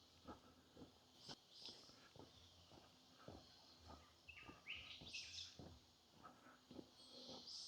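Footsteps on the forest floor at a steady walking pace, about two steps a second, with birds chirping now and then, a quick run of rising chirps near the middle. Faint overall.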